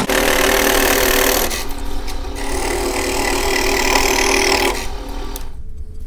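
Scroll saw running, its reciprocating blade cutting through a pine board to open a slot between two drilled holes. The sawing stops about five seconds in.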